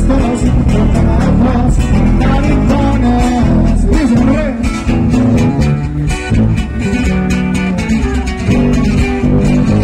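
Live regional Mexican band music through a stage PA: strummed acoustic and twelve-string guitars with electric bass and button accordion, playing steadily.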